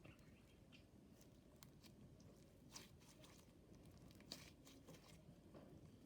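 Faint clicks and crackles of a stiff clear slime with bubbles being stretched and squeezed by hand, with two slightly louder pops partway through. The slime is over-activated, stiff and falling apart.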